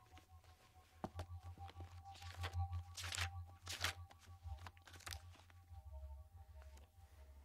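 Several short, papery rustling sweeps, like the pages and leather flap of a ring-bound organizer being handled and leafed through, over a low steady hum.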